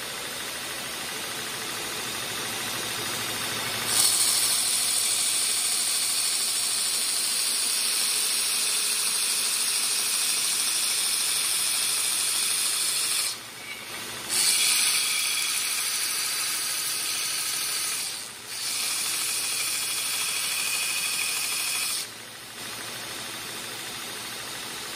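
Home-built belt grinder running. From about four seconds in, a piece of metal is pressed against the abrasive belt and a loud grinding hiss begins. It breaks off twice for a moment when the work is lifted. Near the end the grinding stops and only the belt running free is heard.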